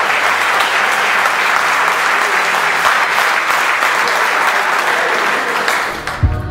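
Audience applauding steadily, cut off suddenly near the end.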